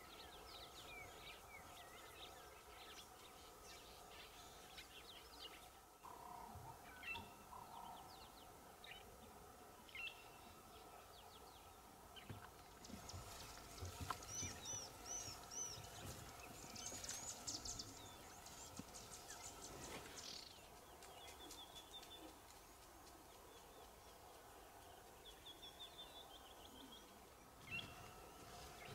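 Faint bush ambience of assorted birds chirping and calling, with a livelier run of repeated high calls and trills about halfway through, over a faint steady hum.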